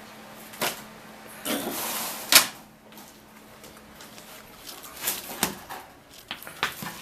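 Objects being handled: a few sharp clicks and knocks with a short rustling scrape in between.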